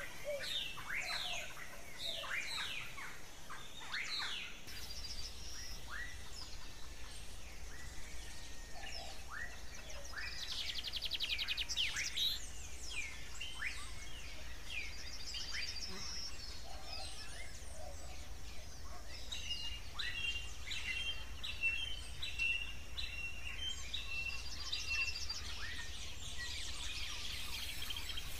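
Birds singing and calling: many quick chirps and falling notes, with a run of short, evenly repeated notes in the second half.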